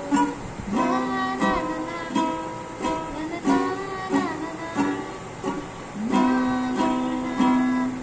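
Ukulele strummed in chords by a learner while a woman sings along, with one long held note near the end.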